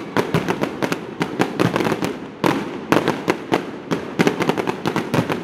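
Fireworks display: a rapid, irregular string of sharp bangs and crackles from bursting shells, several a second.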